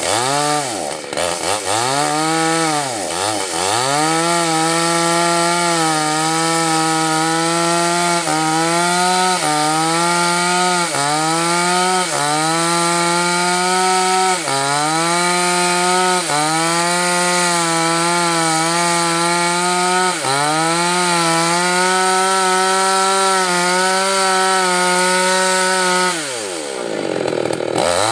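Two-stroke chainsaw cutting into a coconut palm trunk. It revs up over the first few seconds, then runs at full throttle with short dips in pitch about once a second as the chain bites. Near the end the revs drop away almost to idle and then climb back up.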